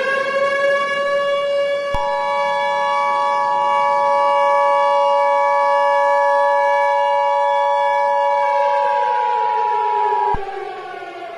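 Emergency alert broadcast tones: a siren holds one steady pitch, and about two seconds in the two-tone EAS attention signal starts over it with a click. The two-tone cuts off with a click near the end, as the siren winds down in pitch.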